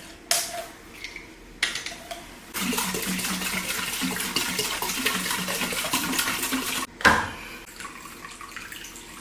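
Running or pouring water, a steady rush lasting about four seconds, with a few short knocks before it and one sharp knock just after it stops.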